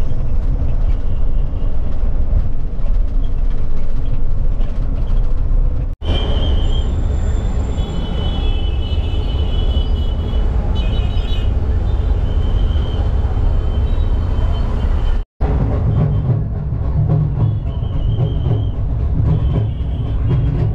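Low, steady road rumble inside the cabin of a KSRTC Olectra electric bus on the move. After a cut comes street traffic with short, high horn toots, and after another cut a loud street scene at a crowd.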